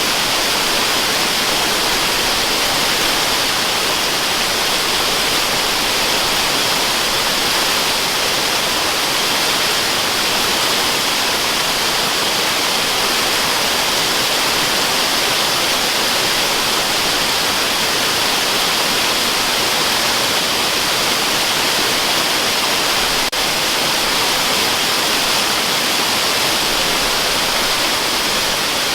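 Waterfall: a steady, even rush of falling water used as white noise, with a faint tick about three-quarters of the way through.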